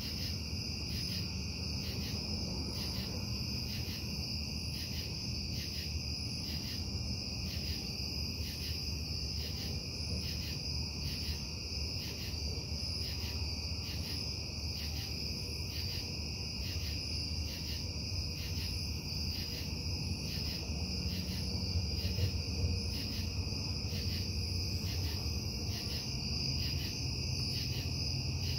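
Steady low industrial hum and rumble from the Casting Solutions foundry, a noise the recordist considers a breach of the noise ordinance. Over it, crickets chirp in an even, regular pulsing chorus.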